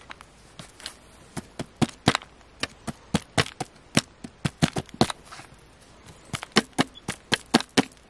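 A small digging tool chipping and scraping at a crumbly dig-kit block: quick, irregular sharp taps, about four or five a second, faint for the first second, then louder, with a short pause about two-thirds of the way through.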